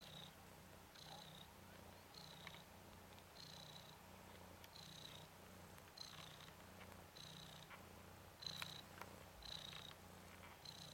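Ragdoll cat purring faintly and steadily, the purr swelling and easing about once a second with each breath.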